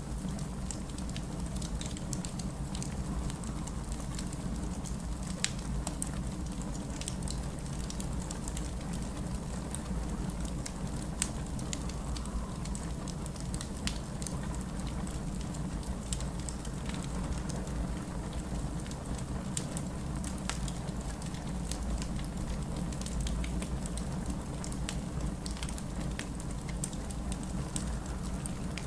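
Wood fire crackling in a fireplace, with scattered sharp pops, over a steady low rumble.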